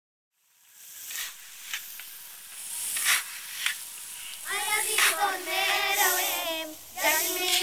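A hiss fades in with a few scattered clicks, then a child sings a high, wavering melody from about four and a half seconds in.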